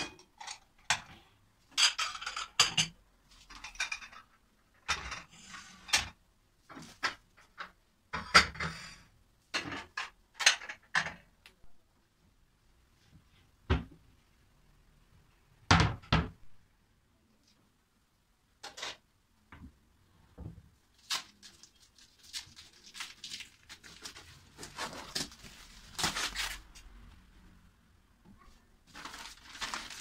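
Ceramic plates and bowls clinking and clattering as they are lifted off a cabinet shelf, with a couple of louder knocks from a cabinet door about halfway through. Later comes a stretch of paper rustling as an old shelf liner is pulled out.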